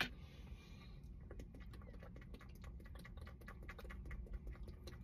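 A two-liter plastic soda bottle is unscrewed with a click and a short hiss of released fizz, then a run of faint small clicks and crackles as the soda is drunk from the bottle.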